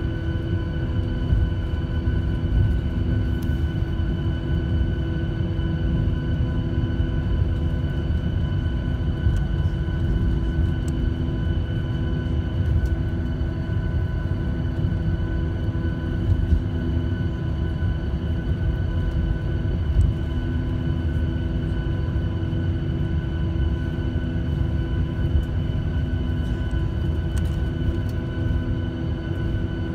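Cabin noise of a Boeing 737-800 taxiing on its CFM56 engines: a steady engine hum with several fixed tones over a heavy low rumble from rolling on the taxiway, with a few light bumps.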